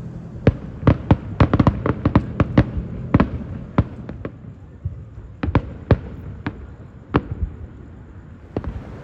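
Aerial fireworks crackling: a rapid, irregular string of sharp pops, densest at first and thinning out toward the end, over a low fading rumble.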